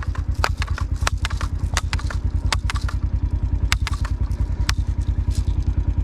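A small engine idling, a steady low pulsing of about a dozen beats a second, with scattered sharp clicks and rattles over it.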